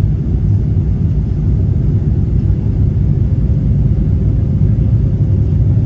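Steady low rumble of an airliner cabin on final approach: engine and airflow noise heard from inside, with a faint steady hum above it.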